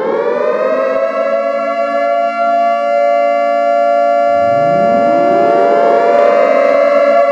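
Air-raid (civil defence) siren holding a steady wailing tone. About four seconds in, a second siren winds up from a low pitch and levels off alongside the first.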